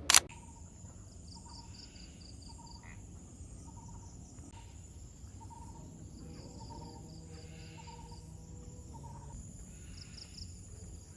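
Insects chirring: a steady high-pitched drone with short pulsing calls, and a lower short note repeated roughly once a second. A sharp click sounds right at the start.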